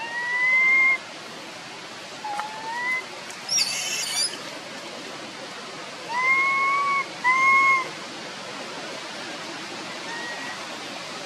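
Young long-tailed macaque crying: five short rising whistle-like coos, the loudest two close together about six to seven seconds in, with a brief higher squeal about three and a half seconds in, over a steady hiss. It is the cry of a baby monkey whose mother has stopped nursing it.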